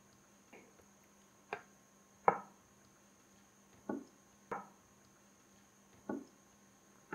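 Raw chicken leg pieces being handled and rubbed with oil in a dish: a series of about seven short, soft knocks and pats, spaced irregularly.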